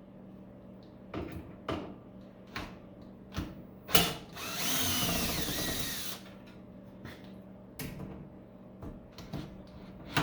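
Power drill backing out case screws: one run of about two seconds, its whine rising and falling. Sharp clicks and knocks from the screws and case being handled come before and after it.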